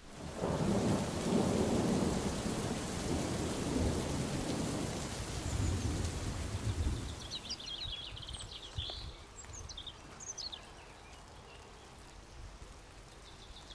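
Rain falling with low rumbling thunder, fading away after about seven seconds. Faint high chirps follow in the quiet.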